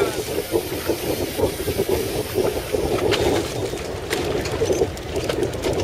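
A fishing boat's engine running steadily under the deck, mixed with the wash of sea water along the hull, with a few brief clicks.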